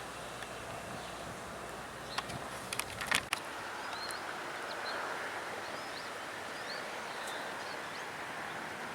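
Outdoor ambience with a steady hiss: a few sharp clicks come about two to three seconds in, then a bird calls with a series of short chirps.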